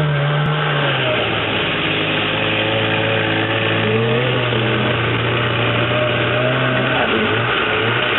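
Snowmobile engine idling, its pitch settling a little lower about a second in and lifting slightly about four seconds in.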